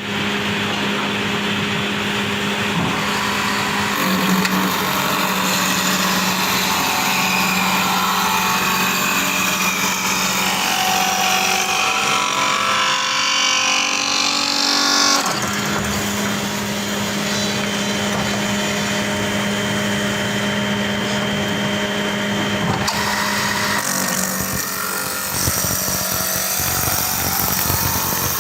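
CNC wood lathe running: a steady motor hum under the hissing noise of the cutter turning wood. The cutting noise grows louder and brighter about halfway through, then drops back suddenly.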